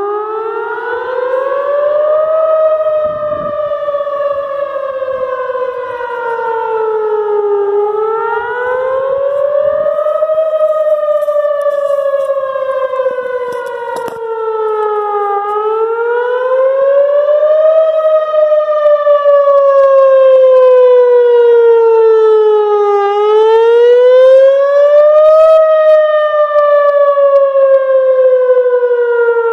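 Whelen Vortex electronic outdoor warning siren sounding a test: a loud wail that slowly rises and falls in pitch, one cycle about every seven and a half seconds.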